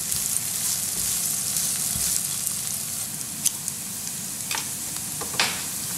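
Diced onions, cumin seeds and crushed garlic sizzling in hot sunflower oil in a non-stick frying pan as they are stirred with a spatula. A few sharp clicks stand out in the second half.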